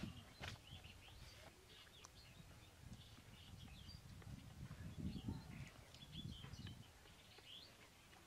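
Faint, scattered bird chirps over a low background rumble, a little louder around the middle.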